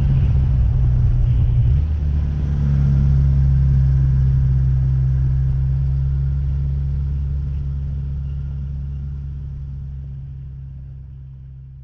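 Race car engine running steadily at a low, even pitch, with a brief dip about two seconds in, then gradually fading away.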